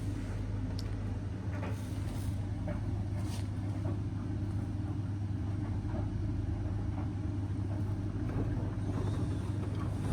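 Indesit washing machine near the end of the main wash on an 85-degree baby cycle: a steady mechanical hum with a few faint knocks.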